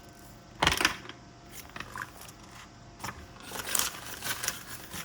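Small objects being handled on a desk: a sharp clack about two-thirds of a second in, then scattered light taps and clicks, with a stretch of paper-like rustling a little past the middle.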